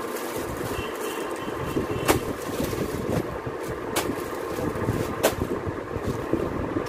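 Cloth and plastic-packed suit pieces being unfolded and handled, rustling over a steady background rumble, with three sharp clicks, about two seconds in, at four seconds and just after five seconds.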